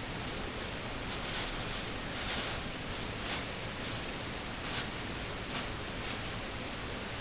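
Steady hiss with a run of about ten short, scratchy rustles in the middle, the sound of hands handling the laptop's parts during disassembly.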